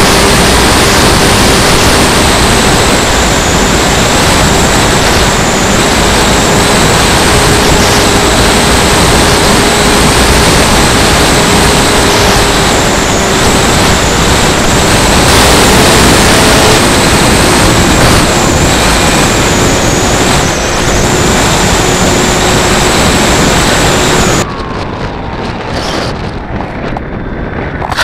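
Loud wind rush over an onboard camera on a Multiplex Funjet RC plane, with the steady whine of its electric pusher motor and propeller wavering slightly as it flies low. About 24 seconds in the motor whine and most of the rush cut off suddenly, leaving a quieter rustle as the plane comes down in the grass.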